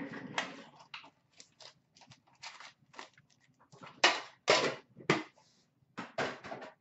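Metal trading-card tin being opened and emptied of its foil packs by hand: an irregular run of sharp clicks, taps and clatters, loudest a little past the middle.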